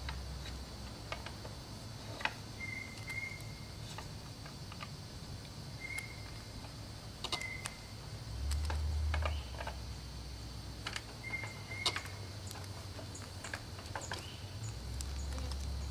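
Faint scattered clicks and ticks of a bicycle pedal being turned off its crank arm by hand, its threads corroded, with a few short high chirps and a brief low rumble.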